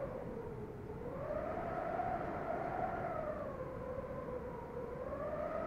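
A siren wailing, its pitch slowly rising and falling, over a low rumble.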